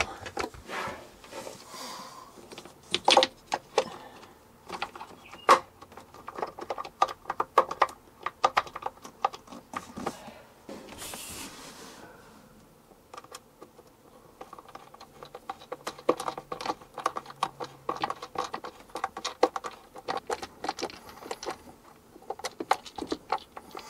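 Rapid runs of sharp clicks from a ratcheting screwdriver driving screws into the plastic flush valve mount of a Dometic 310 RV toilet, with a brief hiss about eleven seconds in.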